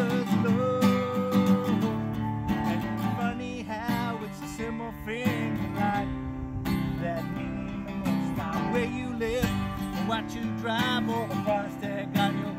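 Acoustic guitar strummed in a country song, with a man singing along.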